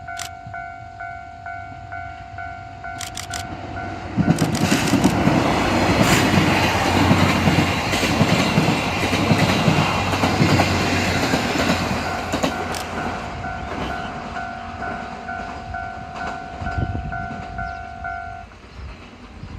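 Japanese level-crossing warning bell ringing in a steady, rapid pulse. About four seconds in, a DD51 diesel-hydraulic locomotive suddenly passes loud and close, its engines running under the clatter of wheels over the rail joints, followed by its train of carriages rumbling past and fading. The crossing bell stops shortly before the end.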